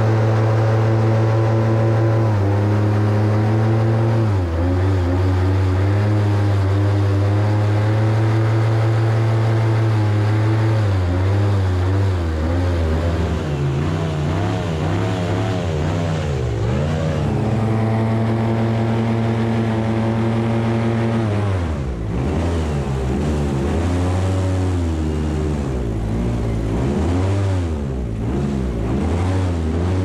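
Diamondback airboat's engine and caged propeller running under way, a loud steady drone that holds one pitch at first, then rises and falls repeatedly in the second half as the throttle changes.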